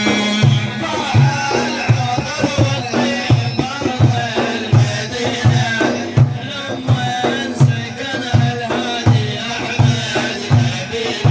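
Instrumental interlude of an Arabic devotional praise song: a deep drum keeps a steady beat, a little under two strikes a second, under a winding melodic instrument line.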